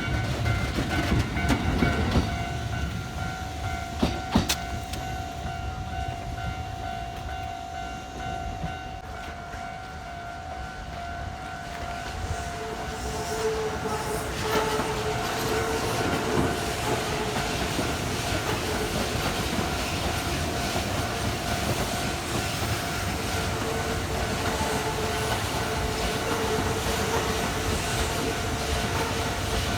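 Kintetsu electric trains running past, wheels clacking over the rail joints, the rumble growing louder about twelve seconds in as a train comes through. A level crossing warning alarm rings steadily all the while, the crossing held closed by train after train.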